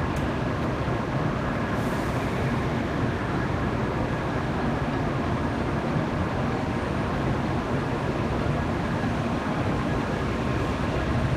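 N700 series shinkansen train pulling slowly out of the platform, its running noise steady throughout.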